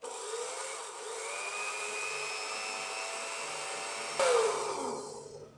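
Electric blender's small dry-grinding jar running, grinding roasted cumin and ajwain (carom) seeds into powder: a steady motor whir with a whine that rises about a second in. About four seconds in it gets louder, then winds down with falling pitch as the motor stops.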